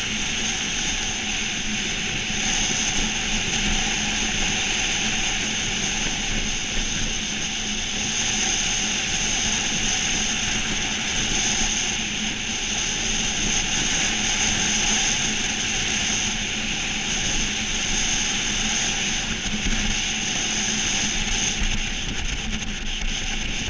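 Monotype XV iceboat sailing at speed: a steady hiss and rumble of its runners on the ice, mixed with wind on the microphone, with a steady high whine running through the noise.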